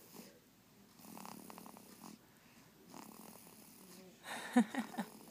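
Month-old baby snoring: a fluttering, rattling snore about a second in, a softer one about three seconds in, then a louder snort with a brief grunt near the end.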